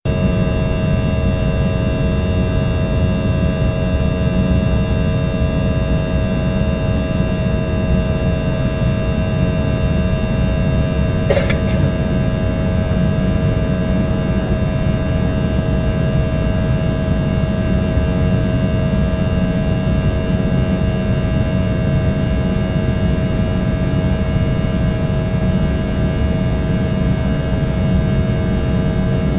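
Airbus A319 cabin noise in flight: a steady, loud rush of engine and airflow noise with a constant hum of several held tones. A single brief click about eleven seconds in.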